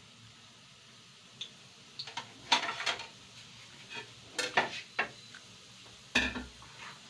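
Ceramic plates clinking and clattering as they are picked up and set down, in a few bursts of sharp knocks a couple of seconds in, mid-way and near the end. Underneath is the faint sizzle of stuffed dough pastries deep-frying in a wok of hot oil.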